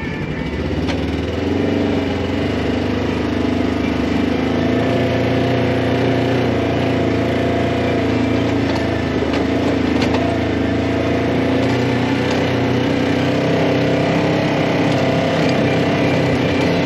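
Side-by-side UTV engine running at low speed, a steady note with small rises and dips in pitch, and a few light knocks.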